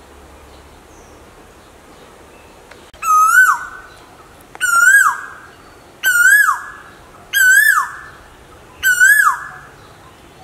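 Asian koel calling five times, about a second and a half apart, starting about three seconds in: loud whistled two-part notes that rise and then drop sharply, the 'ko-el' call of the male.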